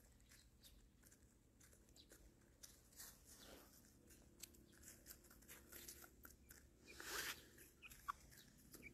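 Chickens pecking and scratching in dry wood-chip litter: faint crunching and small irregular clicks, with a louder rustle about seven seconds in.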